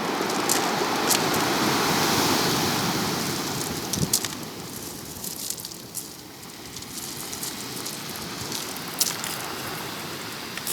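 Ocean waves washing in: a surge of surf swells over the first few seconds and eases off by about six seconds in, with scattered sharp crackles through the wash.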